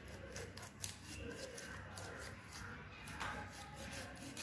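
Faint scraping of a kitchen knife sawing through a lemon against a granite surface, with a few light clicks.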